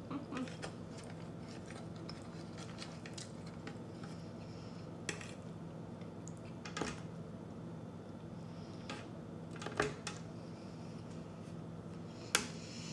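Quiet chewing of creamy pasta with scattered clicks of a metal fork against the serving tray; the loudest click comes near the end as the fork is set down. A low steady hum runs underneath.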